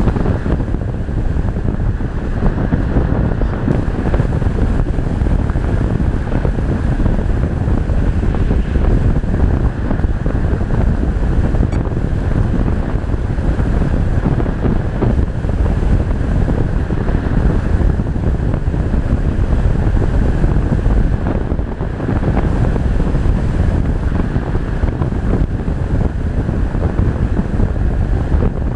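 Steady, loud rushing of wind buffeting the microphone, without any engine or motor tone.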